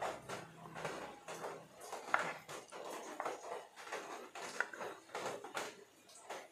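Plastic measuring cup scooping thick rice-flour batter from a plastic bowl and pouring it into a silicone mould: a run of small irregular clicks, knocks and scrapes of plastic on plastic.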